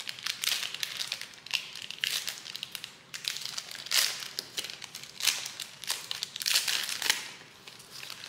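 Foil wrapper of a trading card pack crinkling as it is handled and opened by hand, in many short, irregular crackly bursts.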